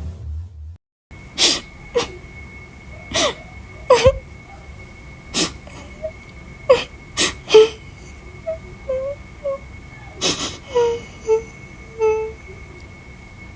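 A young woman crying: sharp, ragged sobbing breaths and short high whimpers in irregular bursts, starting about a second in.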